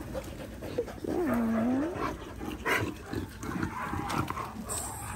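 A dog gives one drawn-out, howl-like call during play, lasting about a second, dipping in pitch and then rising again. It is followed by scattered short scuffs and clicks.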